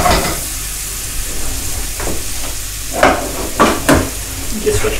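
Chopped onions sizzling gently in olive oil in a frying pan. Several knocks and clatters of pots and pans a few seconds in, as cookware is lifted from a cupboard.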